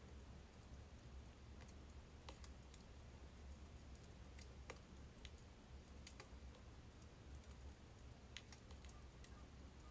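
Faint, irregular crackles and snaps of burning birch logs in a fire, about a dozen scattered pops over a steady low rumble.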